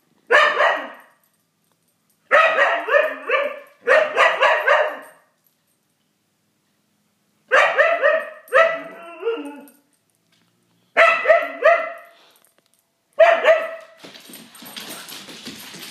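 Husky barking and yipping in play, in short runs of several quick calls with pauses of one to three seconds between them. Near the end the calls give way to a fainter rustling noise.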